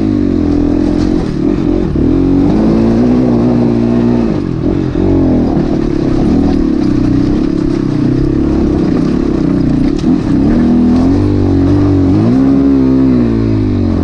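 Crossfire 250 dirt bike engine working over rough, rutted ground, its revs rising and falling several times between steadier running as the throttle is worked.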